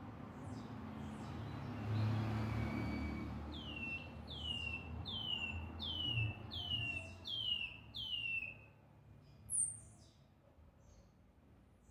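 Caged chorão (white-bellied seedeater) singing a run of seven clear whistled notes, each sliding downward, about one and a half a second, followed by a single higher note; scattered short chirps come before, over a low rumble of background noise that is loudest about two seconds in. The bird is coming back into song after its moult.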